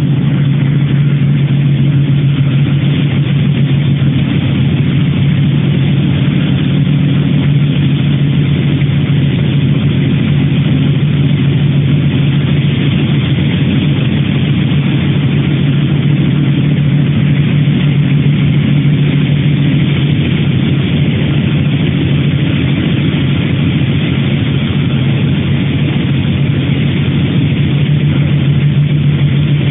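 Rotary sawdust drying plant running: a loud, steady machinery drone with a strong low hum and a constant hiss above it.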